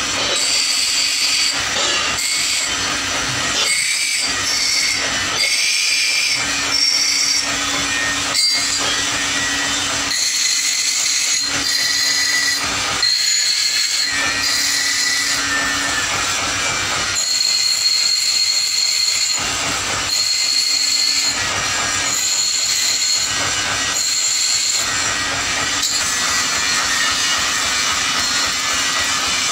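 Bench grinder grinding steel: a high screech each time the piece is pressed to the spinning wheel, again and again, over the steady hum of the grinder's motor.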